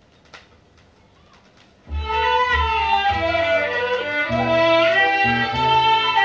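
Vinyl record playing: faint surface hiss with a click or two, then about two seconds in the instrumental intro of a Thai popular song starts suddenly, with strings over a steady bass line.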